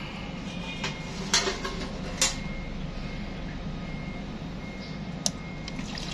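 Workshop background: a steady low hum with a few sharp clicks and knocks, and a faint high beeping tone that comes and goes.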